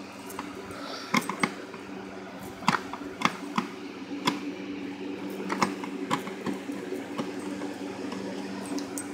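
Scattered sharp clicks and taps of a Phillips screwdriver and screws against the plastic housing of a Hoover vacuum as the screws are worked out, over a steady low hum.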